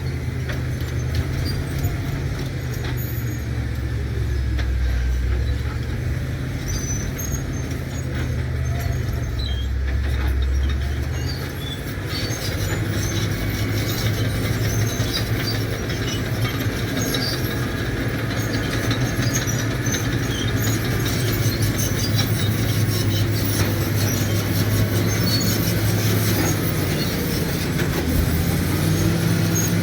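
Caterpillar D7 bulldozer's diesel engine running steadily, its note rising about twelve seconds in, with scattered short high squeaks and clinks over it.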